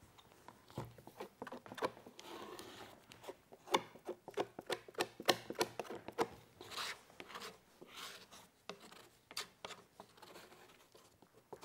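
Toothed plastic glue spreader scraping and rubbing over wet wood glue on a plywood panel in quick, irregular strokes, with small clicks and taps.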